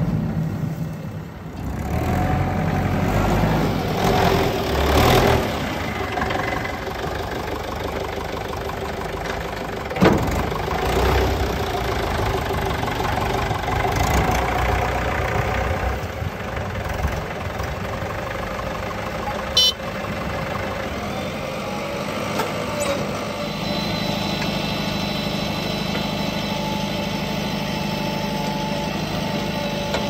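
Diesel engines of a JCB 3DX backhoe loader and farm tractors running steadily as the backhoe loads soil into a trolley. A sharp knock comes about ten seconds in and a short click near twenty seconds.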